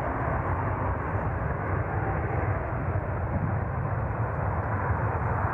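Jet airliner engines passing close by, a steady rushing noise that holds level throughout.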